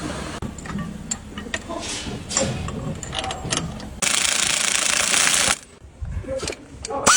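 Workshop tool noise from suspension repair on a car: scattered metallic clicks and knocks of hand tools, with a loud burst of a power tool about four seconds in that lasts about a second and a half and stops abruptly.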